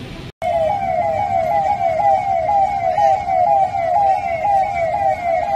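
Vehicle siren going in fast rising sweeps, about four a second, starting abruptly about a third of a second in.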